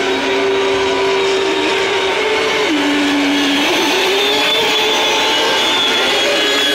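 Engines of several radio-controlled racing powerboats running at high revs together in a steady, high-pitched whine. One engine drops in pitch about three seconds in and picks back up about a second later.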